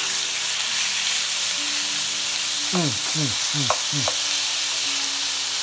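Sirloin steak strips sizzling in hot oil in a cast-iron skillet as tongs spread them out: a steady frying hiss. A few short falling tones come about three seconds in.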